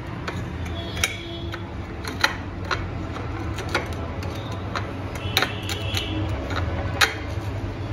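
Rim of an upturned drinking glass clicking and grating against a clear bowl as it is pressed and twisted in a sugar-and-spice mix to coat it, with irregular sharp ticks, the loudest near the end. A steady low hum runs underneath.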